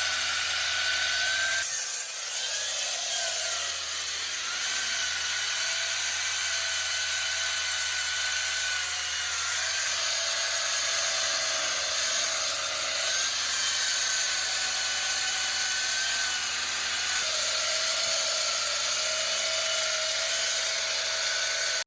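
Hydraulic diamond-blade handsaw cutting concrete: a steady high whine over a hiss, its pitch dipping slightly now and then as the blade loads in the cut.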